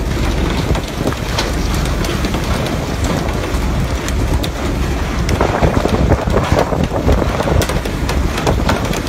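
Steady, rain-like hiss of water spray hitting the sea along the boat's side, with wind buffeting the microphone and scattered sharp knocks and clicks.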